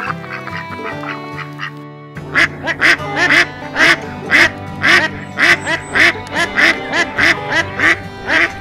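Background music with a steady melody. About two seconds in, a mallard hen starts quacking over it in a rapid, even series of about three quacks a second.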